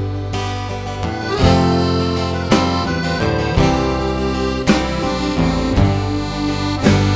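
Live folk-rock band playing an instrumental break with no singing: acoustic guitar and drums under a held, reedy lead melody, the notes changing about once a second with a steady beat.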